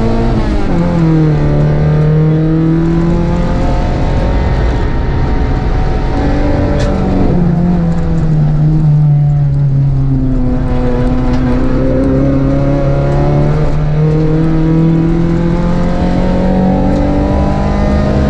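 Rally car engine heard from inside the cockpit on a gravel stage, pulling hard, its revs dropping and climbing again several times, over a steady rush of tyre and gravel noise.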